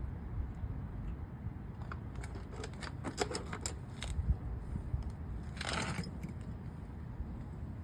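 Small metal parts and hand tools being handled during brake caliper bolt installation: a cluster of light metallic clicks a few seconds in, then a brief scraping rattle, over a steady low rumble.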